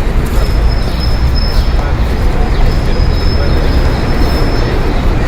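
City street traffic ambience: a steady low rumble of passing vehicles. A thin, high whine sits over it from about half a second in until near the end.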